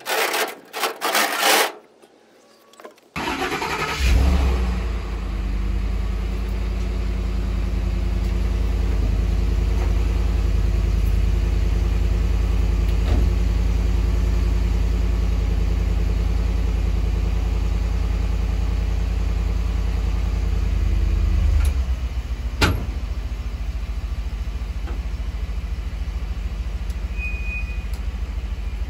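A pickup truck's engine starts and runs steadily. Its note changes about two-thirds of the way through, followed shortly by a single sharp knock, and a short high beep sounds near the end.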